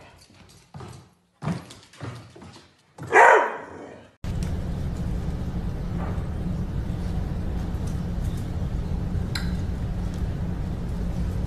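Dog's claws clicking on a hardwood floor as it runs, then one loud bark about three seconds in. After that, a steady low hum with a few faint taps.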